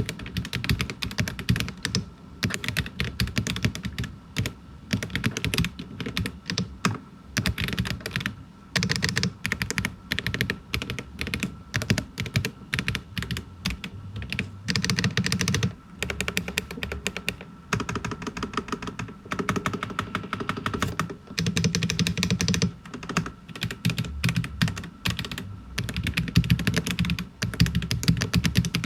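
Typing on a Royal Kludge M75 mechanical keyboard with linear switches and silicone dampening pads: a continuous run of keystrokes with a few brief pauses.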